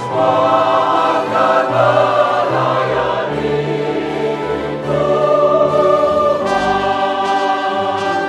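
Mixed choir of men and women singing a hymn in Indonesian in parts.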